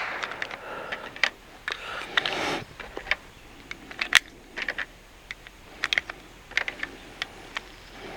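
Pistol cartridges being loaded into a Glock-style magazine: irregular small metallic clicks and rattles, with a brief rustle a couple of seconds in. Heavier 147-grain rounds are going in after a string of 115s.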